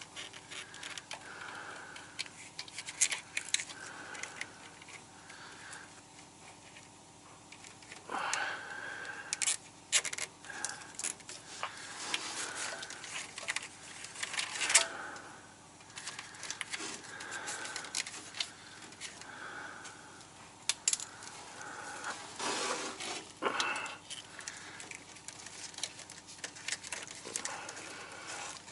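Irregular clicks, rattles and short scrapes of hand work on a truck's air lines, plausibly zip ties being pulled tight to secure the lines back in place.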